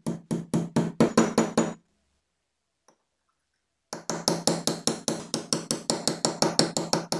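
A hammer tapping a steel punch to drive a pin down into a hole in a metal vise body, in two quick runs of about five blows a second with a pause of about two seconds between them. Each blow leaves a short metallic ring.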